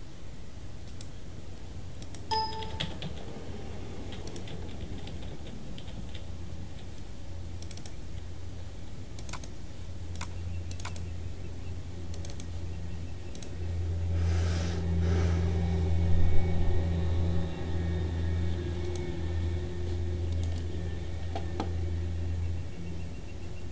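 Scattered clicks of a computer mouse and keyboard, with a low hum that grows louder about halfway through.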